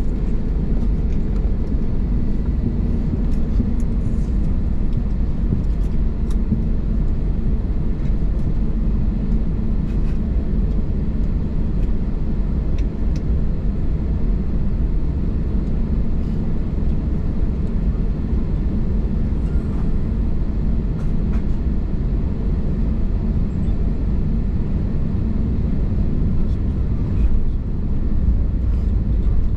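Steady low rumble of an Airbus A321neo's cabin, engine and airframe noise heard from a window seat on the ground before takeoff, holding an even level with no spool-up.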